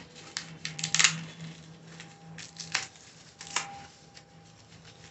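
Foam packing sheet and bubble wrap being pulled and crinkled by hand off a cast-iron tawa, in a few sharp rustling bursts, the loudest about a second in.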